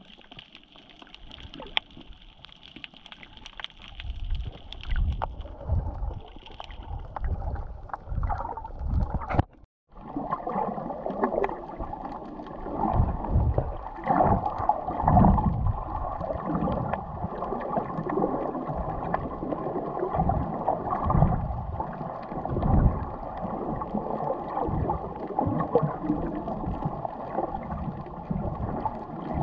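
Muffled water sounds picked up by a camera held underwater: sloshing and gurgling in uneven swells as the snorkeler swims. The sound cuts out briefly about ten seconds in and is louder and denser afterwards.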